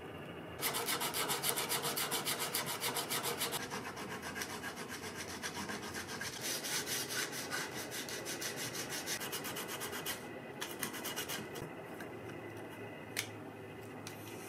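Brass bolster plate of a knife handle being abraded by hand in a vise: fast, rhythmic back-and-forth scraping strokes of metal on brass. The strokes stop after about ten seconds, followed by a few scattered strokes and a single click.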